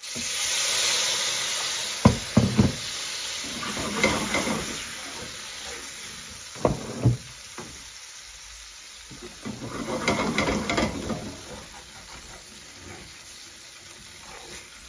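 Base gravy poured into a hot metal pan of frying spices, hitting with a sudden loud sizzle that dies down over a few seconds. A metal spoon then stirs and scrapes the pan, with a few sharp knocks about two and seven seconds in, and more sizzling stirring around ten seconds in.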